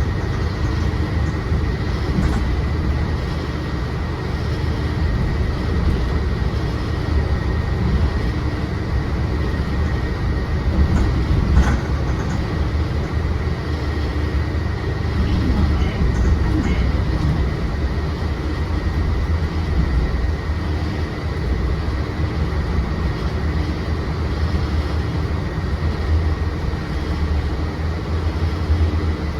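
Mercedes-Benz Citaro C2 city bus heard from inside the cabin while under way: a steady low engine and road rumble with a faint steady whine above it, and a few light ticks or rattles about twelve seconds in.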